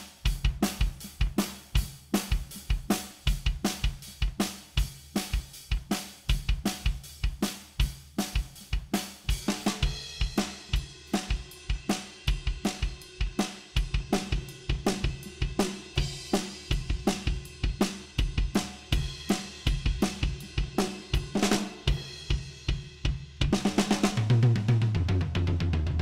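Recorded acoustic drum kit (kick, snare, hi-hat and cymbals) playing a steady groove, run through the Vertigo Sound VSM-4 harmonic-saturation plugin. Near the end, a tom fill steps down in pitch under a ringing cymbal.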